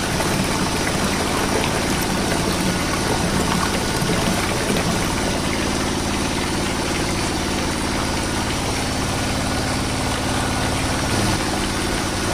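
A motor running steadily at an even, unchanging pace, like an engine idling.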